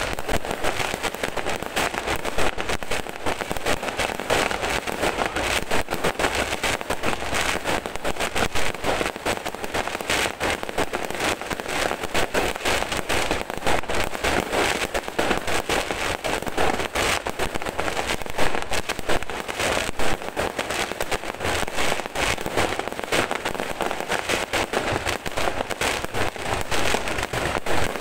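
Aerial fireworks display: a dense, unbroken run of bangs and pops from bursting shells, several a second.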